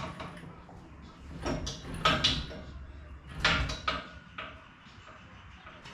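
A few metallic clunks and scraping creaks, three of them louder, as a pickup-truck cab hanging from an engine hoist is lowered and settles onto the chassis.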